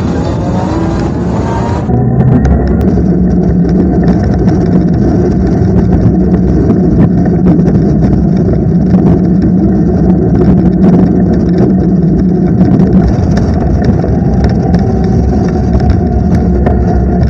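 Electric bike's 60 V rear motor whining up in pitch as the bike accelerates over the first couple of seconds, then running steadily at speed under a constant rush of wind and road noise.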